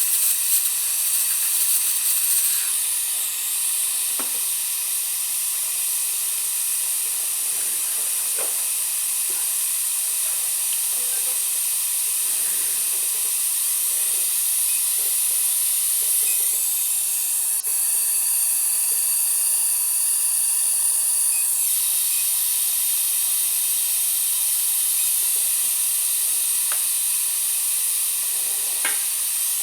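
Steady high-pitched hiss of a dental high-speed air-turbine handpiece running with its spray. A higher whine joins for about five seconds past the middle.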